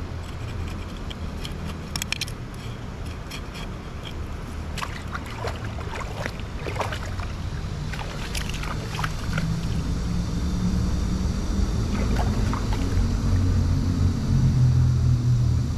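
A motor engine's low drone grows steadily louder, strongest near the end. Scattered short clicks and scrapes of a cleaver on fish come over it in the first half.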